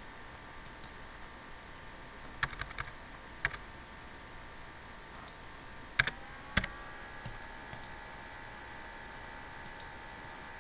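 Computer keyboard and mouse clicks: a quick run of keystrokes a couple of seconds in, one more keystroke, then two sharper clicks about halfway through. A faint, steady high-pitched electrical whine runs under them.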